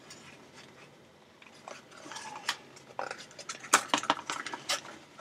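Packaging of an LED light bulb being handled and pulled open: plastic and cardboard crinkling and clicking, irregular, with several sharp clicks in the second half.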